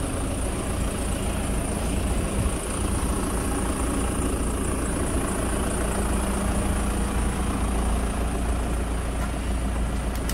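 Passenger minivan's engine idling with a steady low rumble.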